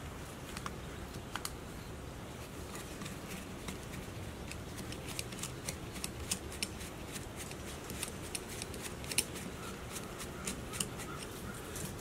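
Scattered light metallic clicks and scrapes of a flathead screwdriver working in a small-engine carburetor body, unscrewing its brass jets.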